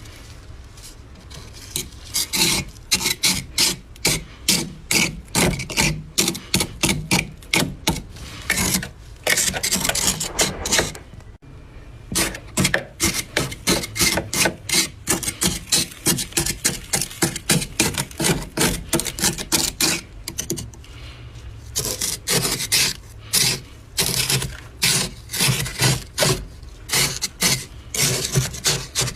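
Thick, dry freezer frost being scraped off in quick repeated strokes, about two a second, each a rasping, crunchy scrape. The strokes pause briefly about a third of the way through and loosen for a while around two-thirds of the way in.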